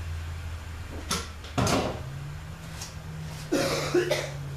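A steady low hum with a few sharp knocks and clatters, the loudest about a second and a half in and a cluster around three and a half to four seconds in; the hum steps up in pitch about a second and a half in.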